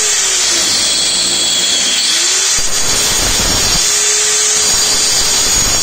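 Handheld electric tile cutter (angle-grinder type) cutting through a ceramic tile. Its disc is at full speed, giving a loud, steady grinding noise with a high whine over it. The noise starts abruptly.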